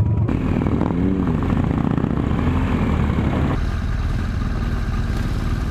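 Motorcycle engine running steadily while under way, a loud low drone that eases slightly after about three and a half seconds.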